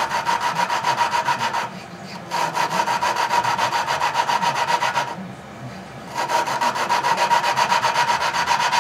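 Tecumseh engine valve being lapped into its seat with a suction-cup lapping stick twirled back and forth by hand: a rapid, rhythmic gritty grinding with a steady ringing tone. It stops twice briefly, about two and five seconds in, as the valve is lifted and set back down on the seat.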